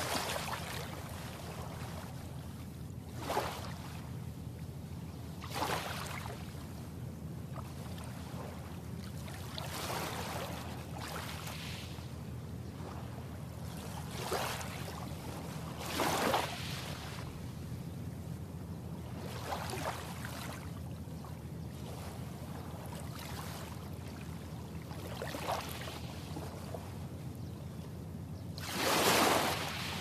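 Small, gentle waves breaking and washing up on a sandy shore of a calm sea, each a soft hiss that swells and fades every few seconds, the loudest near the end. A steady low hum runs underneath.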